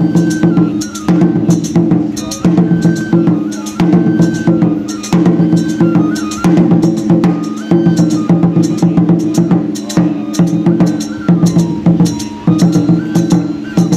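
Japanese shrine-dance accompaniment: a drum beaten in quick, repeated strokes under a thin, high flute-like melody that steps between a few notes.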